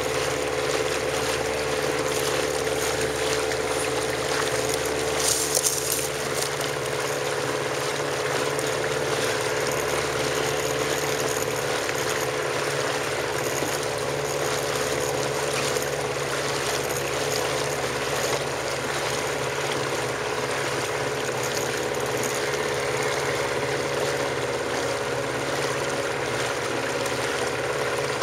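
Motorboat engine running at a steady drone over the hiss of water and air moving past the boat. A brief louder hiss about five seconds in.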